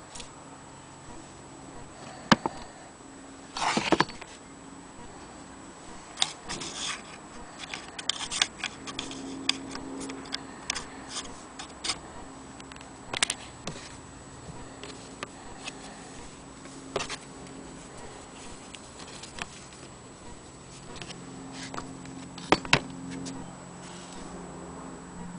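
Handling noise: scattered clicks, taps and knocks as an antique cast-iron sewing machine on a wooden base is handled and moved. There is a sharp knock about two seconds in, a brief rustle about four seconds in, and two louder knocks near the end. A faint low hum continues underneath.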